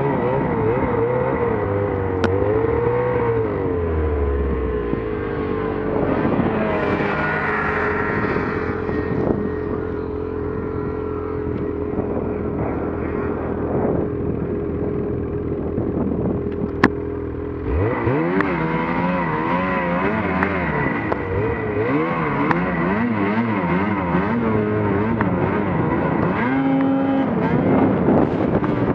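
Snowmobile engine running under way, its revs wavering up and down. The revs hold fairly steady for about ten seconds midway, then climb sharply again about two-thirds of the way through.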